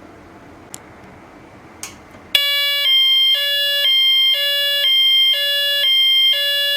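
YA90 fire strobe siren sounding its second tone: a loud electronic two-tone alarm that alternates between a lower and a higher tone about twice a second. It starts abruptly about two and a half seconds in, after two faint clicks, and cuts off suddenly near the end.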